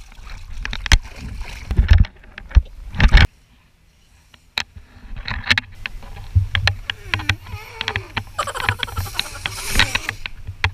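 Water splashing and sloshing in a small inflatable paddling pool, with knocks and thumps close to the microphone and a short quiet gap about three seconds in.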